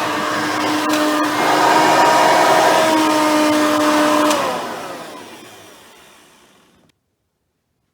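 Hoover Elite 350 vacuum cleaner with a 5-amp motor and seven-blade fan running steadily, then switched off about four seconds in, its motor whine falling in pitch as it winds down.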